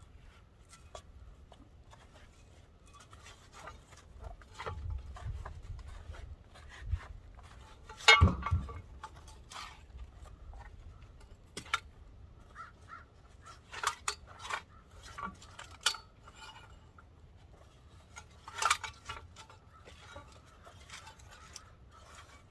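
Scattered metal clanks and clinks from over-the-tire skid steer tracks and their strap and hardware being handled, with the loudest clank about eight seconds in.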